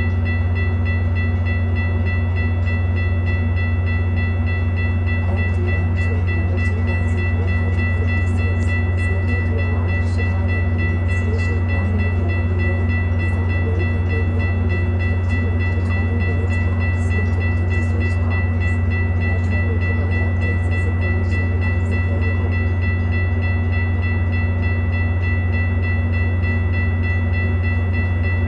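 Diesel commuter-train locomotive idling: a loud, steady low hum with a steady high-pitched whine over it and a few faint clicks.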